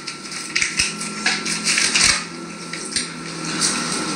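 Irregular clinks and scrapes of eating utensils against a bowl, a dozen or so short sharp knocks, over a faint steady electrical hum.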